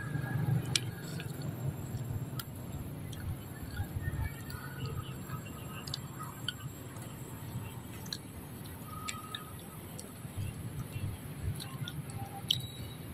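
Macaque cracking peanut shells and chewing, heard as scattered small cracks and clicks over a low background rumble.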